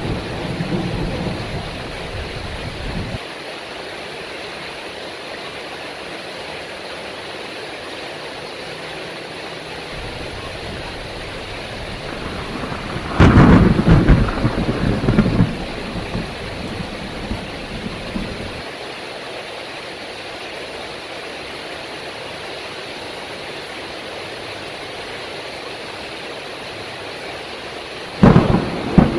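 Heavy rain falling steadily through a thunderstorm. A rumble of thunder dies away in the first few seconds, and a loud crack of thunder about halfway through rolls on for several seconds. Another sharp clap of thunder comes near the end.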